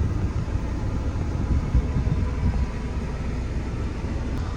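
Steady low rumble of a loaded grain truck's engine and road noise, heard from inside the cab while driving.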